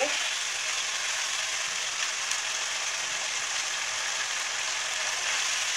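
Chicken karahi sizzling steadily in ghee in a non-stick frying pan while it is bhuna-fried in its masala.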